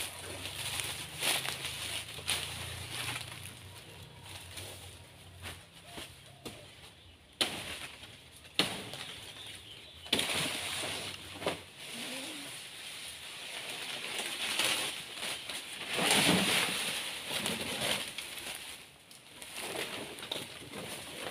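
Banana leaves rustling and scattered knocks and thuds as a man climbs and works high in a banana tree, with a bird calling in the background. The rustling swells twice, about halfway through and again a few seconds later.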